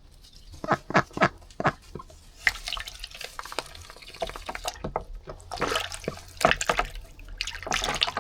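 A hen duck in heat splashing wildly in her water: a run of quick splashes and drips, with a few bigger bursts of splashing, one near the end.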